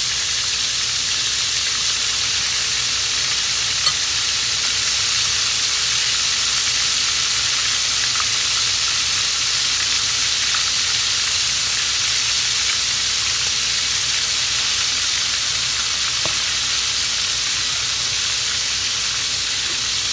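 Flour- and cornstarch-coated octopus tentacles deep-frying in hot oil in a pan: a steady, loud sizzle, with one short tick about four seconds in.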